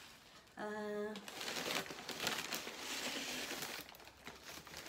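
White plastic wrapping crinkling and rustling as a package is handled and lifted out of a cardboard box, dense and crackly for a couple of seconds and fainter near the end. A brief hummed voice sound comes just before the crinkling starts.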